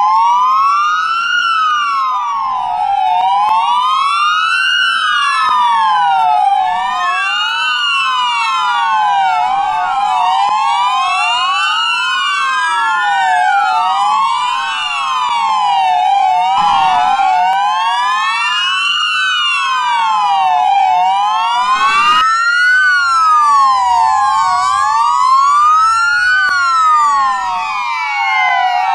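Several police car sirens wailing together, out of step with one another, each tone slowly rising and falling every few seconds. The parked patrol cars are sounding them at once as a memorial siren salute to a fallen officer.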